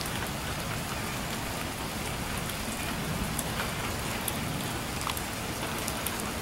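Steady light rain, an even hiss with scattered sharp drips.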